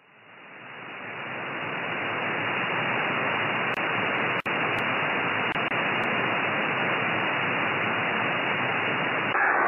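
Single-sideband receiver hiss from an RTL-SDR on the 13 cm band (2320 MHz) with no signal on the frequency. The hiss swells over the first two seconds as the slow AGC brings the gain back up after the strong station drops its carrier, then holds steady, with one brief dip about halfway through.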